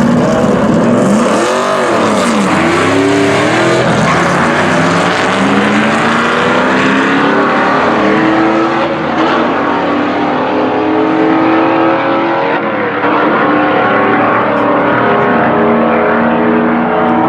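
Drag-racing car engine revving loudly. It rises and drops back once about a second or two in, then accelerates hard, its pitch climbing again and again through the gear changes.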